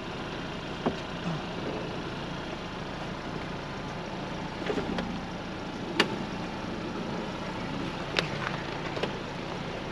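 Ford Bronco running at crawling speed over a rough dirt trail, a steady low engine sound with a few sharp knocks and clicks from the vehicle working over the ground, the loudest about six seconds in.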